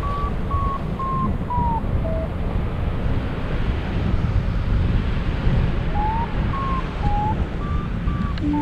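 Wind rushing over the microphone in flight during paragliding. Over it, faint short electronic tones change pitch from note to note, and a steady lower tone sets in near the end.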